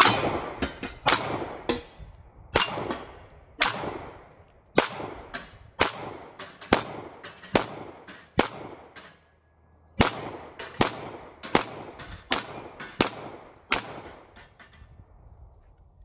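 About eighteen 9mm pistol shots from a Stoeger STR-9, fired at a steady pace of roughly one a second with a short pause about halfway. The steel plates clang as they are hit and knocked off their racks.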